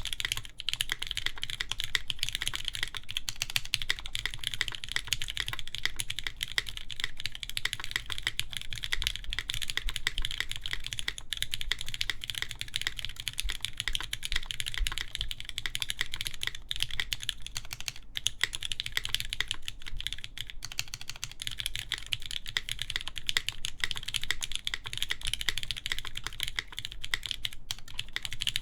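Continuous fast typing on a mechanical keyboard with lubed, 80 g-sprung Cherry MX Black linear switches, GMK keycaps and a full aluminium plate: a steady stream of clicks and key bottom-outs.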